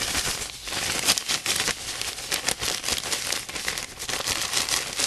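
A plastic bag of table salt with small plastic model-kit parts inside being shaken steadily. The salt grains rustle and the bag crinkles in a dense, irregular run, tumbling the parts in the salt to sand their surfaces.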